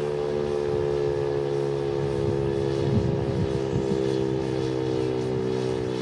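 Federal Signal STH-10 outdoor warning siren sounding its daily noon test, holding a steady pitch made of two close tones. A low, gusty rumble joins it about halfway in.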